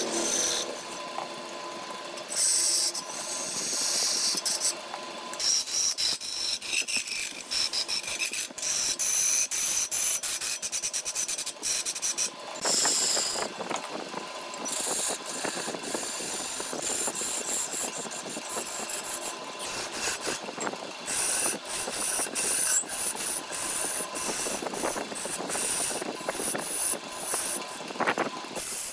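Wood lathe turning a log blank while a hand-held turning tool cuts into the spinning wood: a rough scraping, rasping sound that swells and fades every second or so as the tool bites and eases off, with many small sharp ticks.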